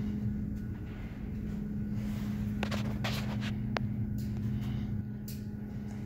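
A steady low mechanical hum, with a few light knocks and clicks of footsteps on a bare concrete floor.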